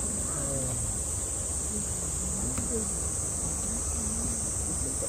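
A steady, high-pitched chorus of summer cicadas, with faint visitors' voices underneath.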